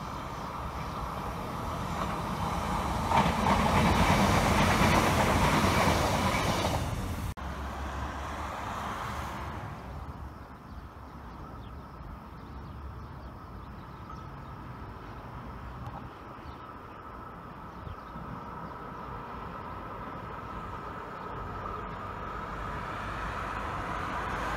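Electric regional passenger train running past on the main line, loudest a few seconds in, cut off suddenly about seven seconds in. Then a locomotive-hauled Intercity train approaching, a steady whine and rumble that grows louder toward the end.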